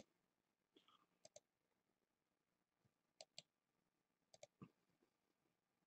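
Faint computer mouse clicks in quick pairs, about a second in, then around three seconds and four and a half seconds in, with near silence between them.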